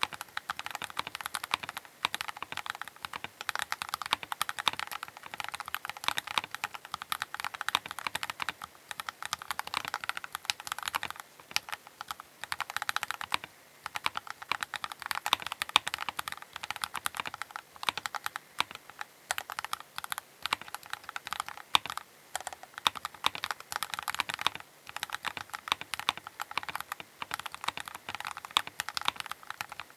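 Keychron K8 Pro mechanical keyboard being typed on fast and continuously, a dense stream of key clicks with a couple of brief pauses.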